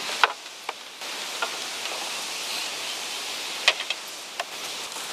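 River water flowing steadily, a continuous rushing hiss, with a few sharp clicks and knocks from the bamboo slats of a suspension bridge being walked on.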